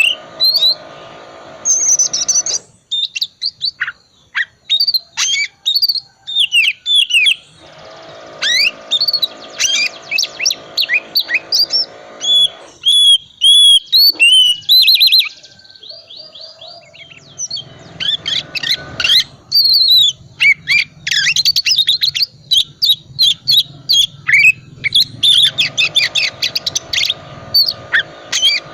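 Oriental magpie-robin (kacer) singing loudly, a rapid run of varied whistles, chirps and trills in phrases with short pauses, in a full song rich in mimicked phrases. In several stretches a steady buzzing drone runs underneath.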